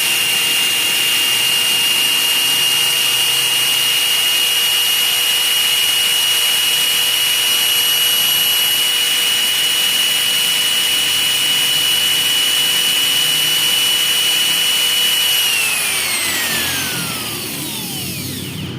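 Skil 6538 6 mm corded electric drill running with no load at a steady speed, a high whine over motor hiss. About three seconds before the end the trigger is let go and the whine falls in pitch as the motor spins down. The motor sounds still fairly smooth even though the drill is old stock that has long sat unused.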